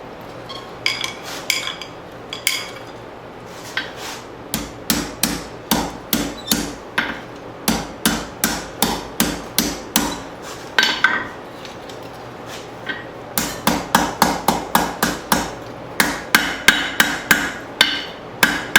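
Blacksmith's hammer striking leaf-spring steel on an anvil, each blow ringing. A few scattered blows are followed by a steady run of about two to three strikes a second, then a short pause and a faster run of blows.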